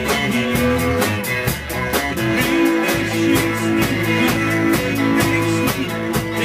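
Live band playing an up-tempo rock number: electric guitar over bass and drum kit, with a steady beat.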